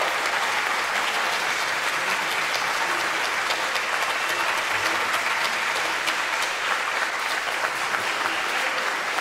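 A crowd applauding: dense, steady clapping from the audience and the choir members.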